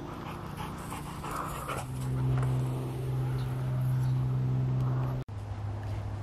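A dog panting, over a steady low hum that breaks off abruptly about five seconds in and resumes slightly lower in pitch.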